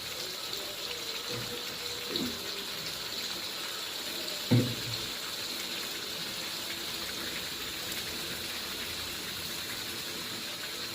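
Shallots and blended chili-spice paste sizzling in hot oil as they are sautéed, a steady frying hiss. A brief louder sound with falling pitch breaks in about four and a half seconds in.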